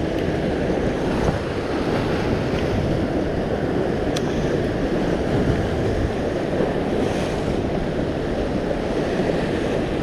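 Ocean surf washing steadily, with wind on the microphone.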